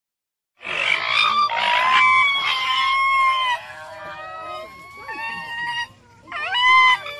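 Common raccoon dog calling: a run of high, drawn-out calls with wavering, gliding pitch, starting about half a second in. The calls are quieter through the middle and loud again near the end.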